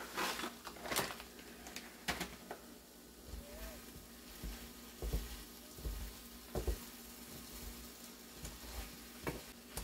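An egg, vegetable and shredded-cheese scramble sizzling in a skillet while a wooden spoon stirs it, with irregular knocks and scrapes of the spoon against the pan. A plastic cheese bag crinkles near the start.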